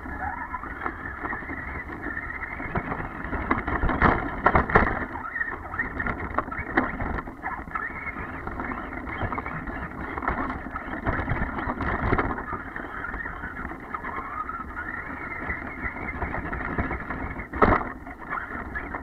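Traxxas E-Revo electric RC truck driving through snow, heard from a camera mounted on it: a steady rumble of chassis and tyres with the motor's whine rising and falling with the throttle. Sharp knocks come about four seconds in and again near the end as it bumps over the snow.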